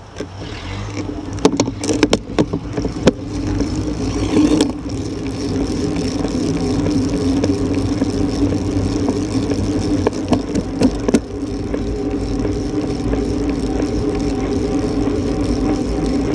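Wind and road noise on a bicycle-mounted camera as the bike pulls away from a standstill and picks up speed, with motor traffic running alongside. There are a few sharp clicks and knocks in the first seconds and again about ten seconds in.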